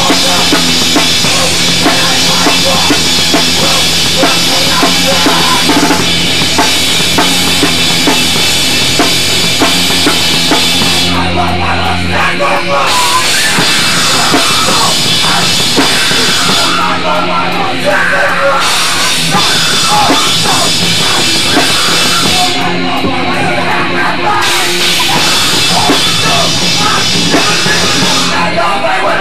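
Loud New York hardcore music: a full band with pounding drums and distorted guitars. The cymbals and high end drop out for a second or two about every six seconds.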